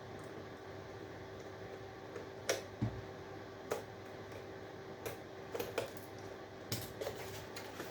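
Small clicks and taps of a screwdriver working apart an electrical fitting for its brass parts, a few scattered knocks from a few seconds in, over a steady background hum.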